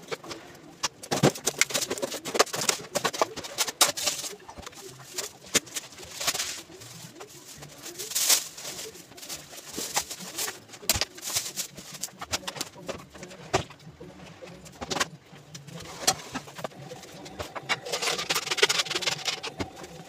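Household handling noises in a kitchen: a run of separate clatters and knocks as things are moved about, with rustling of plastic bags and a stretch of hissing noise near the end.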